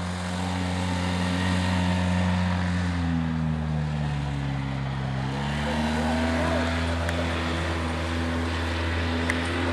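ATV engine running steadily, its pitch dropping for a moment about four seconds in and rising again as it is throttled back up.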